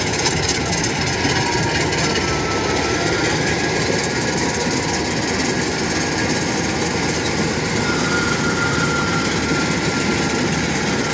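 Kubota DC-105X rice combine harvester running steadily as it drives and cuts through the crop: its diesel engine and threshing machinery make a dense mechanical din.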